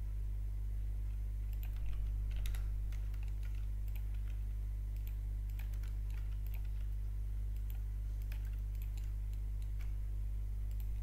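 Computer keyboard keys tapped in scattered ones and twos as shortcut keys are entered, over a steady low electrical hum.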